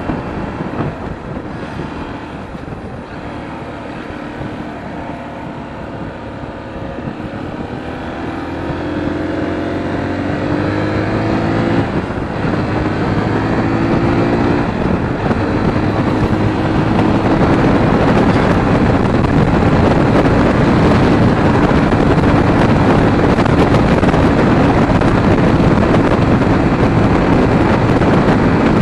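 Sinnis Terrain T125's 125cc single-cylinder four-stroke engine pulling away and accelerating through the gears, its pitch rising with brief dips at two gear changes about twelve and fifteen seconds in. It then settles into a steady cruise, louder, with wind rushing over the helmet microphone.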